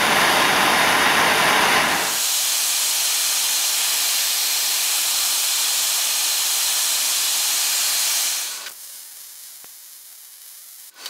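Handheld gas torch flame hissing steadily as it preheats a thick half-inch steel bar joint before MIG welding, so the weld doesn't start cold. The hiss is fuller for the first two seconds, then steadies, and drops away to a faint hiss about eight and a half seconds in.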